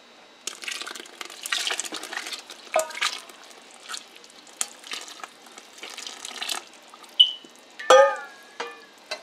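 A long metal ladle stirs and scrapes through thick, simmering wheat-and-lentil haleem porridge in a large metal pot while oily mutton korma is poured in, sloshing unevenly. Two sharp knocks near the end are the loudest sounds.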